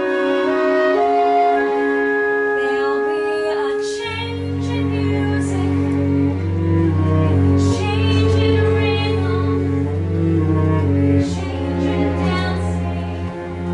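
Pit orchestra playing a slow instrumental passage of held string notes, with a low bass line coming in about four seconds in.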